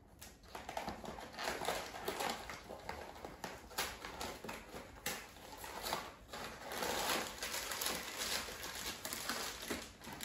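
A cardboard box being torn open along its tear strip, then the plastic bag inside crinkling and rustling as it is pulled open, with irregular crackling throughout.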